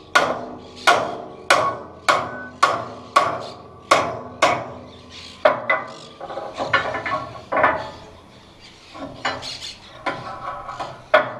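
Hammer blows on a metal machine part, about two a second for the first five seconds or so, then irregular knocking and clatter with one more sharp blow near the end.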